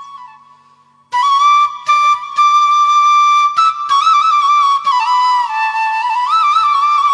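Background flute music: a solo flute plays a slow melody with sliding, ornamented notes, coming back in about a second in after a brief fade.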